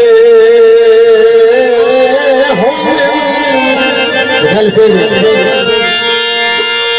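Harmonium playing sustained chords under a man's singing voice that slides through a drawn-out, ornamented phrase in the middle.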